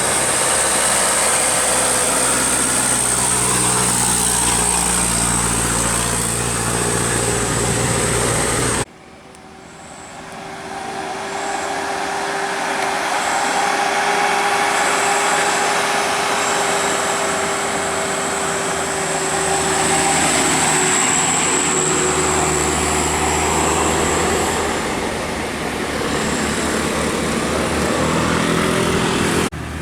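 Tour bus engines running at close range, in two clips joined by a sudden cut about nine seconds in. After the cut a steady whine holds for about fifteen seconds while the engine grows louder.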